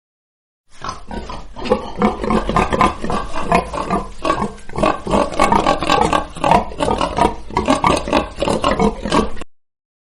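Pig grunting: many short grunts in quick succession, starting about a second in and stopping shortly before the end.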